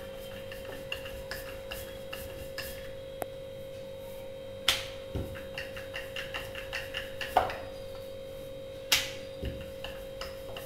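Wooden rolling pin rolling out dough on a granite countertop: a run of light clicks and taps, with three sharper knocks of the pin on the stone, over a steady hum.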